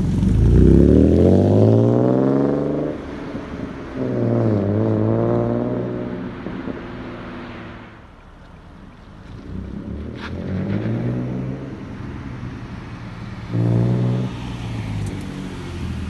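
Exhaust of a 2017 Ford Mustang's 3.7-litre V6, running with a muffler delete and resonated tips, as the car accelerates away from a stop. The note rises, breaks off, rises again and fades as the car pulls away. Later it comes back with two shorter rises in revs.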